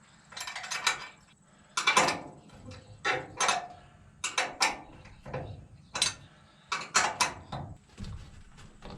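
Spare tire on a camper-shell threaded-rod mount being shaken by hand to test it, the wheel and mount clanking and rattling about once a second.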